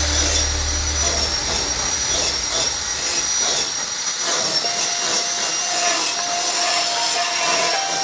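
TIG welding arc on stainless steel, a steady hiss with a thin high whine held over it. A low hum underneath drops away about two seconds in.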